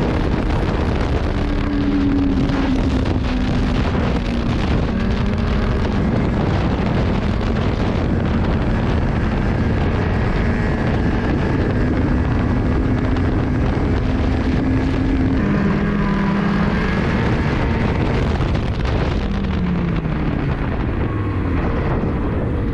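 Ski-Doo 600R E-TEC two-stroke snowmobile engine running under throttle, its pitch mostly steady, dipping about two-thirds of the way through and sweeping down and back up near the end. Wind buffets the microphone.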